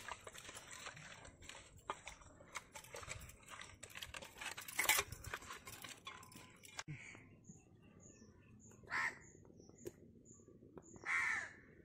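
Hands squishing and turning marinated rohu fish pieces in a steel bowl, with glass and metal bangles clicking against each other and the bowl, for about seven seconds. After that it goes quieter, with a run of short high chirps and two brief louder calls.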